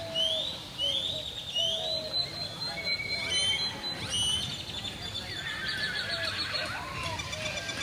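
A horse whinnying in a wavering call that falls in pitch, after a string of short rising whistles repeated about every 0.7 s.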